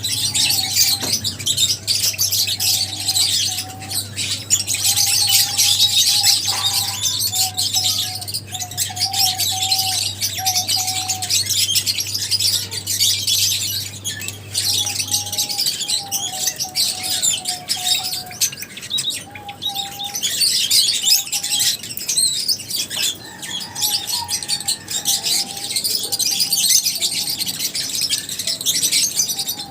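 A flock of lovebirds chirping without pause, a dense mass of rapid high-pitched chirps, with lower whistled phrases coming and going. A steady low hum underneath stops about halfway through.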